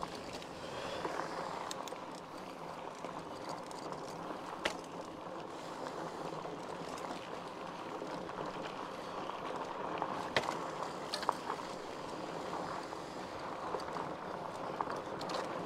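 Mountain bike being ridden: steady rolling noise with a few sharp clicks and rattles from the bike.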